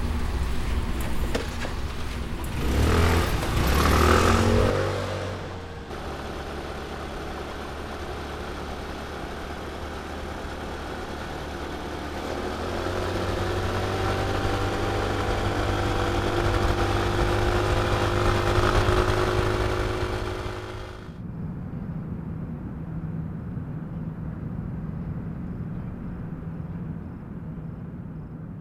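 Motor scooter engine revving up, then running steadily along the road with its pitch slowly rising. About three-quarters of the way through it cuts off abruptly to a quieter steady low hum.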